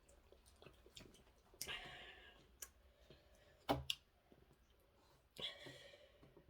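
Quiet eating sounds: scattered small mouth clicks and smacks while chewing, with a sharper click a little under four seconds in and two short soft hissy sounds.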